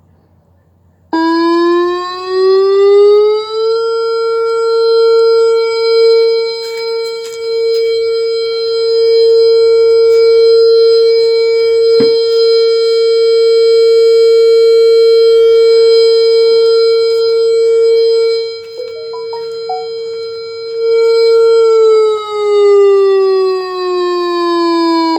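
Electronic siren speaker driver from a Whelen WPS 4008 warning siren, sounding a loud steady siren tone. It winds up in pitch about a second in, holds one pitch for roughly eighteen seconds, then winds back down and cuts off.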